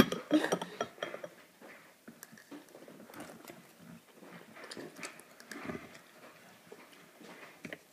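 Scattered light clicks and clinks of a metal spoon and dishes being handled, with quiet rustling in between.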